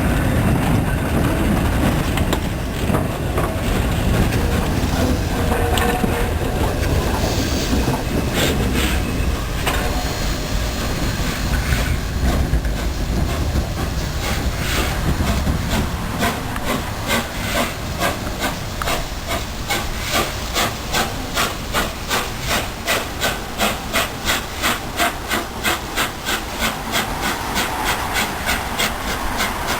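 A steam-hauled train running, with steam hiss over a low rumble. Over the second half a regular beat sets in, about two a second.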